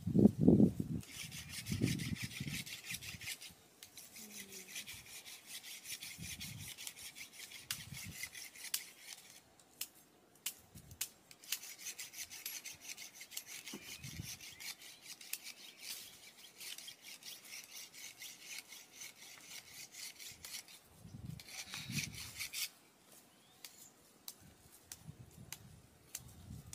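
Knives scraping and paring the peel off cassava roots, a rasping sound of quick strokes that runs in long stretches with short pauses. A dull low thump just after the start is the loudest sound.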